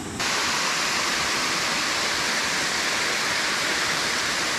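Steady rush of flowing water, an even hiss that cuts in abruptly just after the start.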